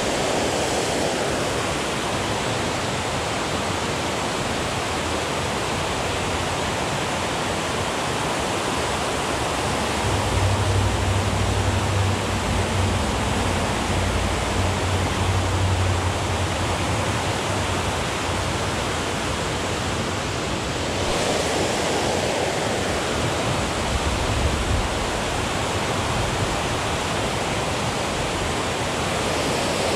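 Steady rush of water pouring over a concrete spillway. A low rumble joins it for several seconds around the middle.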